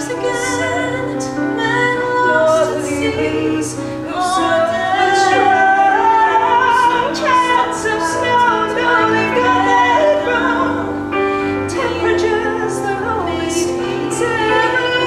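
Singing of a musical-theatre song, several voices together holding and bending sung notes.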